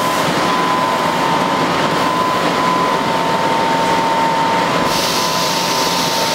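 CO2 laser cutting machine running while it cuts: a steady mechanical whirr with a high whine that wavers slightly as the cutting head moves, and a hiss that joins about five seconds in.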